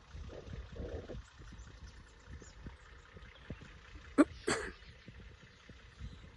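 Nissan Patrol Y61 heard faintly as a low rumble while it drives off along a dirt track. About four seconds in, a short, sharp sound close to the microphone is followed by a brief burst, and this is the loudest thing heard.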